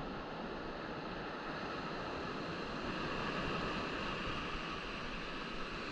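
Steady rushing noise of moving water, with no single event standing out.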